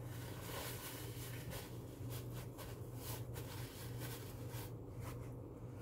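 Paper towel rustling and crinkling as it is handled and folded in the hands, in many short crackles, over a steady low hum.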